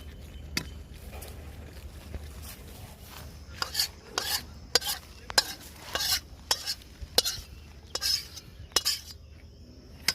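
Metal spoon stirring and scraping in a pot of finished curry, with irregular clinks and scrapes that grow more frequent and louder partway through.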